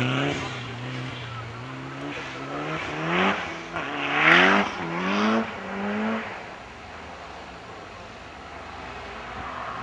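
Mitsubishi Lancer Evolution IX rally car's turbocharged four-cylinder engine held at a steady high pitch through a snowy slide, then accelerating hard, rising in pitch four times in quick succession as it shifts up through the gears. Loudest about four seconds in, then fading into the distance.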